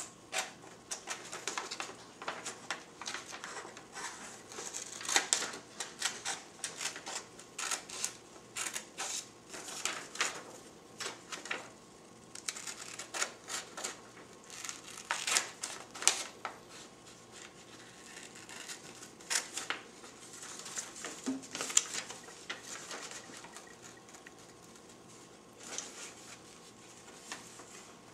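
Scissors snipping through printer paper in short, irregular cuts as a printed shape is cut out along its outline. The snips come thick and fast at first and are fewer and further apart later on.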